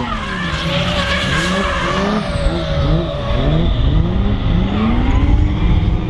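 BMW turbo-diesel engine under hard throttle during a drift, its revs rising and falling over and over about twice a second, with tyres screeching.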